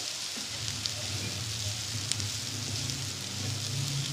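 Potato-and-onion samosa filling sizzling in hot oil in a nonstick frying pan as a spatula stirs it, with a few light clicks of the spatula on the pan. A low steady hum runs underneath from about half a second in.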